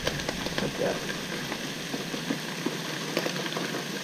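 Speckled trout fillets frying in a pan: a steady sizzling hiss with many small scattered crackles.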